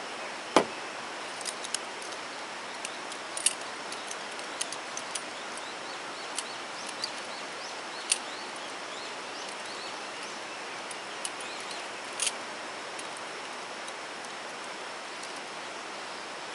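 Small metal clicks and taps from the folding pot supports of an Iwatani Junior Compact Burner (CB-JCB) gas stove being handled and swung open, with one louder knock about half a second in. Under it runs a steady outdoor hiss.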